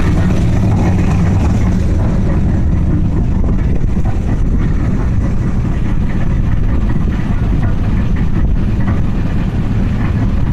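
Engine of a homebuilt paddle-wheel boat running steadily, turning the paddle wheels through a belt and gear drive for the first time.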